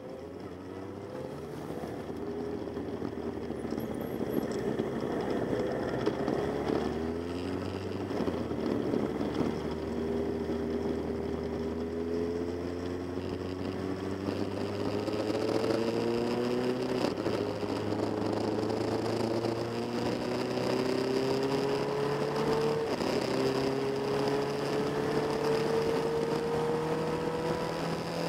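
Motorcycle engine from an onboard camera, pulling through the gears: its pitch climbs slowly and drops back at each upshift, about five times, over a steady rush of wind and road noise.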